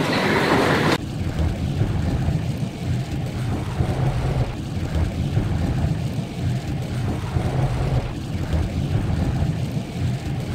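Starting about a second in, a car driving on a rain-soaked road, heard from inside the cabin: a steady low rumble of engine and road noise.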